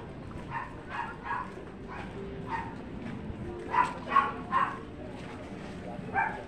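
A dog barking repeatedly in short barks, the loudest three coming in quick succession about four seconds in.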